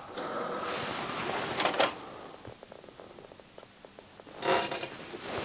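Handling noise of a CD being set on the spindle of an opened CD player drive, with light clicks, then a short whirring burst about four and a half seconds in as the drive starts spinning the disc.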